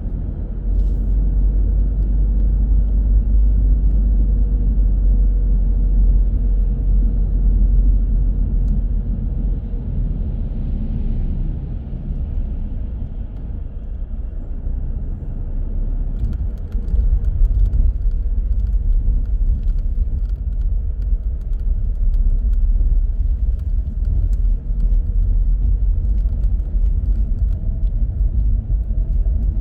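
A car driving on city streets: a steady low rumble of engine and road noise, easing a little around the middle, with many small clicks and rattles over the rumble in the second half.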